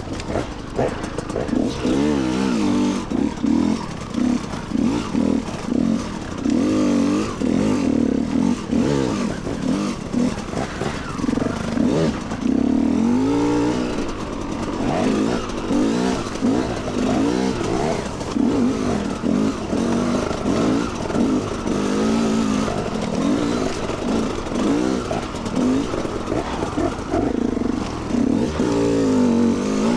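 Motorcycle engine revving up and down again and again as it is ridden, its pitch rising and falling every second or two.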